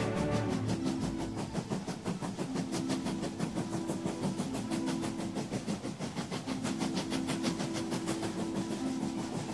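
A steam train running, with quick, regular chuffs. A steady low tone comes and goes under them.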